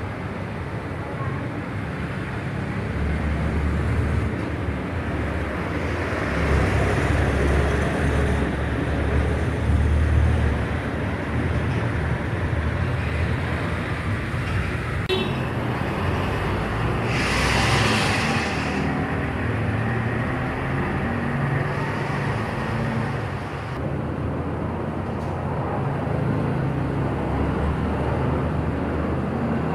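Steady low rumble and hiss of outdoor background noise, with a brief louder hiss a little past halfway.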